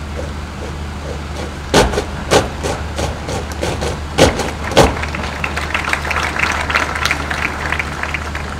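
Drill cadets' boots stamping on the parade ground in unison as the squad halts: two pairs of sharp stamps, each pair about half a second apart, about two seconds in and again about four seconds in. Then a few seconds of scattered applause, over a steady low hum.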